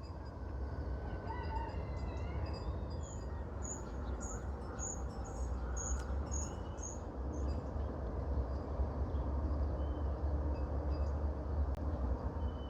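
Outdoor ambience with small birds calling: a run of short, high chirps at about two a second, with a few gliding calls before it, over a steady low rumble.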